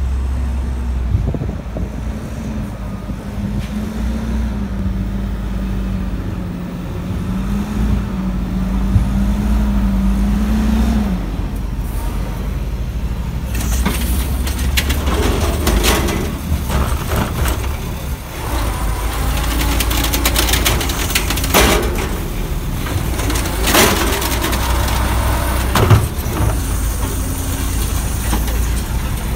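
Mack LE garbage truck with an Amrep automated side-loader body running, a steady low rumble with a wavering hum over it for the first third. From about halfway in, repeated sharp clanks and clatter from the truck join in as it works at the curb.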